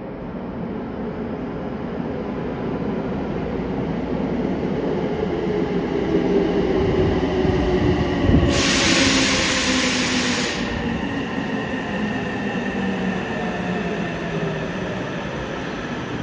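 Six-car subway train pulling into the station and slowing to a stop behind full-height platform screen doors. It gives a rumbling run with a whine that falls steadily in pitch as it brakes, and a loud hiss of air lasting about two seconds just past the middle.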